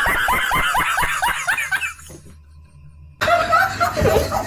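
A young woman laughing in a fast run of short, falling giggles for about two seconds. After a brief lull, louder noise comes back about three seconds in.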